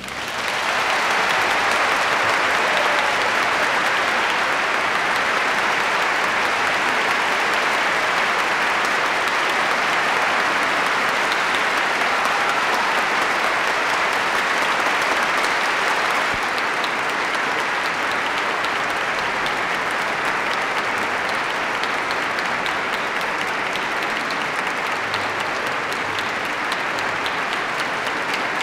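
A large concert-hall audience applauding: dense, even clapping that breaks out just as the orchestra's last chord stops and holds steady, easing slightly about halfway through.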